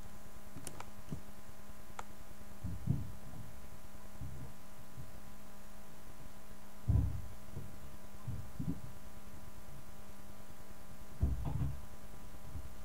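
Dull thumps carried through the van's body as children climb onto its bonnet, a few scattered ones with the loudest halfway through and near the end, heard from inside the cab. Under them runs a steady electrical hum.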